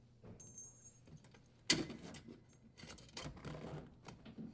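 Small metal parts clicking and rattling as the strain relief and power wires are handled at a dishwasher's wiring bracket. There is a sharp click about two seconds in, then a second or so of rattling.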